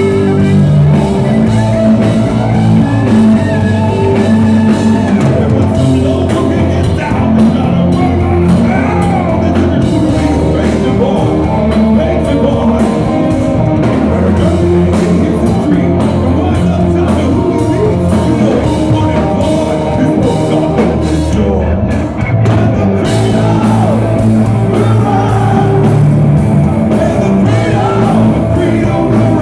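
Live hard rock band playing loud: distorted double-neck electric guitar, keyboards and drum kit, with a male lead singer singing over them.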